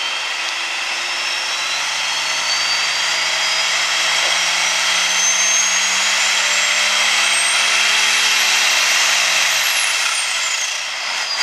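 Oliver farm tractor's engine pulling hard under load against a weight-transfer sled, its note slowly climbing, with a high whine rising alongside. About nine and a half seconds in the engine drops off and the whine falls away as the pull ends.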